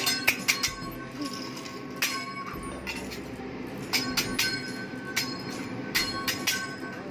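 A teppanyaki chef's metal spatula and fork clanking against each other and against the steel griddle. Sharp ringing clinks come in clusters of two or three, about once a second.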